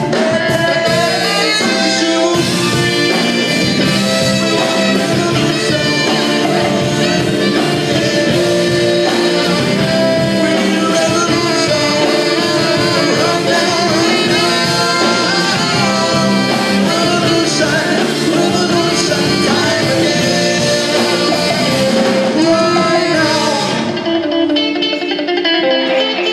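A live band playing a rock song, with guitar prominent in a loud, dense mix; near the end the high end drops away briefly before the full band comes back.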